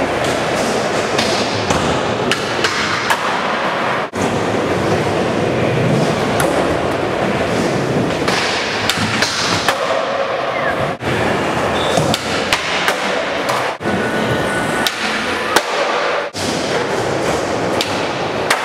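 Skateboards rolling on concrete with repeated sharp clacks of boards popping and landing, echoing in a large indoor skatepark.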